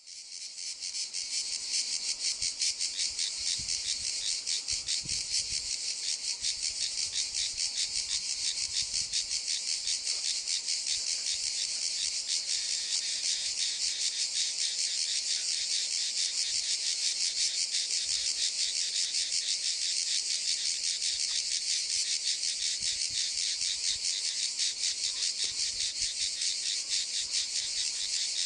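Insects chirping in a fast, even pulse, several beats a second, fading in at the start and then holding steady.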